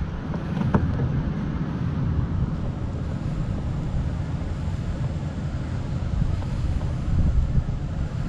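Wind rumbling on the microphone, with a light click about three-quarters of a second in.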